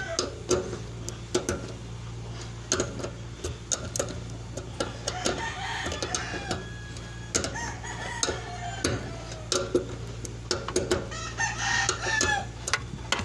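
Chickens clucking and a rooster crowing, with scattered short clicks and knocks and a steady low hum underneath.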